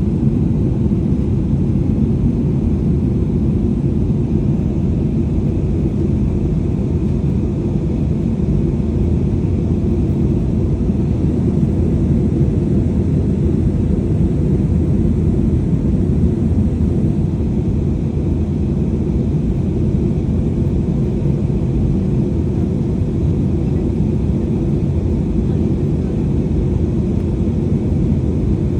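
Steady rumble of an airliner in flight, heard from inside the passenger cabin: engine and airflow noise, deep and unchanging, with a faint higher hum.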